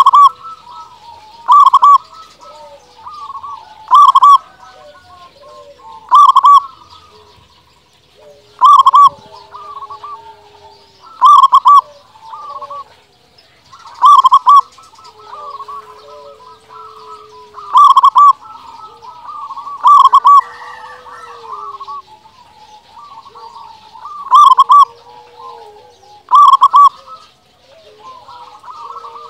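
Zebra dove (local perkutut) singing actively, a loud cooing call about every two seconds, with softer, lower drawn-out coos between.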